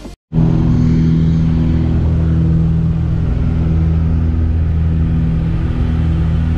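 Steady drone of a small propeller aircraft's engine heard from inside its cabin, with a low, even hum and a rush of air noise. It cuts in abruptly a moment in, after a brief silence.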